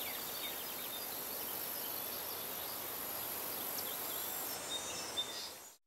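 Outdoor ambience: a steady hiss with scattered short bird chirps and a high, steady insect trill. The trill stops about four and a half seconds in, and the ambience fades out just before the end.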